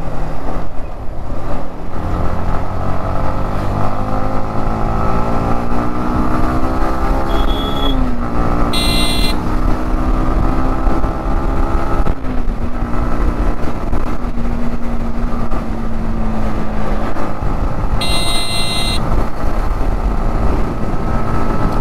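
Motorcycle engine pulling through the gears: its pitch climbs steadily, drops sharply at gear changes about 8 and 12 seconds in, then holds steady at cruising speed. Two short high-pitched beeps sound about 9 and 18 seconds in.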